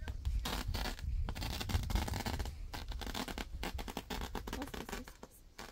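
Busy scratching and rustling, with many small clicks and knocks, over a low rumble.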